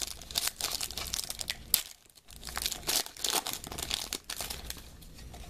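Foil wrapper of a Panini Elite football card pack crinkling and tearing as it is pulled open by hand, in quick rustles with a brief pause about two seconds in.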